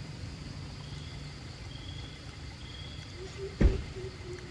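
Outdoor forest ambience: a steady low rumble with faint high insect calls, and a single sharp knock about three and a half seconds in.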